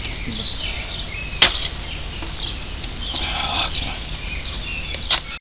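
Shovel digging a post hole in gravelly ground, with a sharp strike about a second and a half in and another near the end, between quieter scraping.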